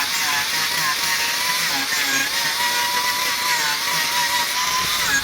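Wood lathe running with a tool cutting the spinning wood: a steady whine that sags and recovers in pitch under the load, over a dense scraping hiss.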